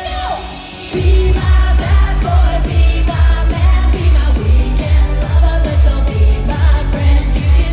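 Live Eurodance pop music over a concert sound system with a woman singing: a held note slides down at the start, then after about a second a heavy four-on-the-floor kick drum comes in, about two beats a second.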